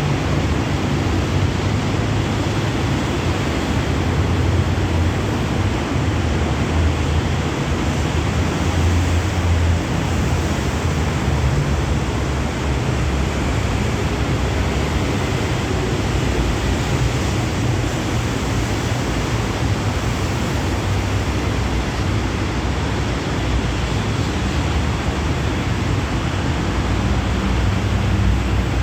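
Diesel-electric locomotive running steadily: a low, even engine rumble under a steady hiss.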